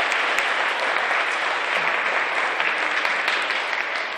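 An audience of schoolchildren applauding steadily, a dense patter of many hands clapping.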